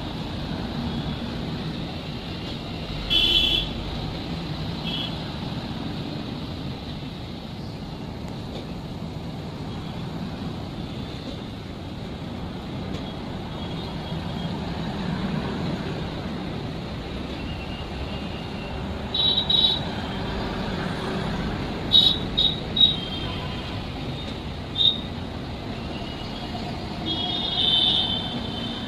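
Steady vehicle rumble with short, high horn toots: one about three seconds in, several close together around twenty to twenty-five seconds, and another near the end.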